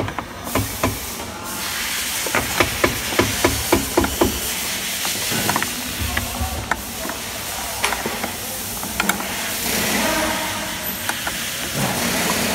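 A spanner turning the two 10 mm bolts of a Toyota Avanza tailgate latch striker, tightening it after it was slid fully forward to take up the play that made the back door rattle. It makes a run of light metallic clicks, about three a second, a couple of seconds in, then scattered single clicks, over a steady hiss.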